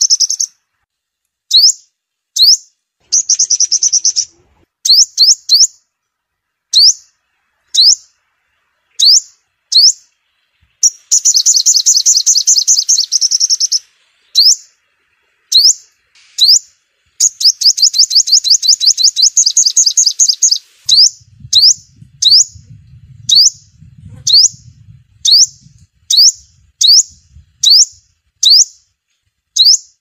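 Sunbird song: sharp, high chirps repeated about once a second, broken by long, fast trills near the start, around the middle and about two-thirds of the way through. It is a recorded call played as a lure for speaker trapping.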